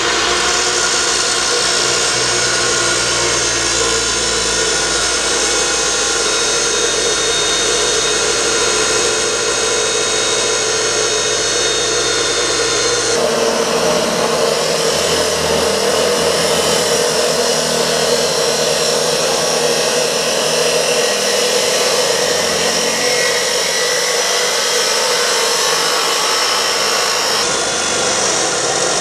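Porter-Cable chop saw running under load, its wheel cutting through 2x2 steel square tube: a steady motor whine over a gritty cutting noise. The sound changes abruptly about thirteen seconds in.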